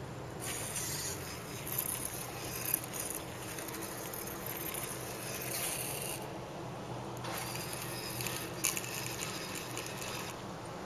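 Small geared motors of a home-made spool-tank robot running in two spells, one of about six seconds and one of about three, with a rattly mechanical whirr and a few sharp clicks as its spiked spool wheels work over gravel.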